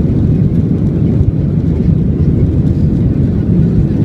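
Airliner taking off, its engines and airflow making a loud, steady low rumble.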